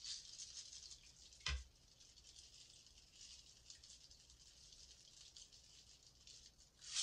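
Downy Unstopables scent beads being poured from the bottle onto wet sponges and into a water-filled porcelain sink: a faint, continuous hail of tiny ticks. There is a single knock about one and a half seconds in.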